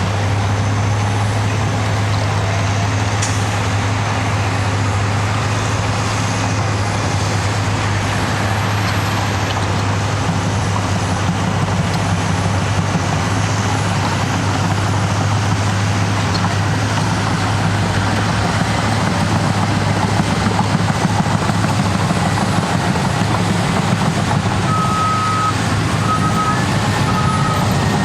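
Cat D6T bulldozer's diesel engine running steadily as the dozer works. Near the end its backup alarm starts beeping, about once a second, as it reverses.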